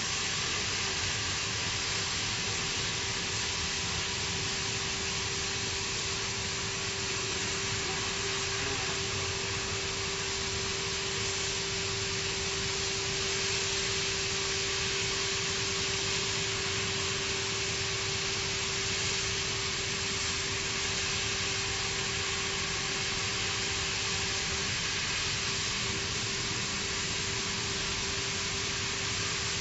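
Cutting torch of a CNC gantry profile-cutting machine burning through steel plate: a steady, even hiss with a constant hum beneath it.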